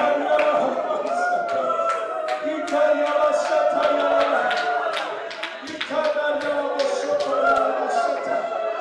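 A group of voices singing a worship song together, with sharp percussive beats keeping a steady rhythm about three or four times a second.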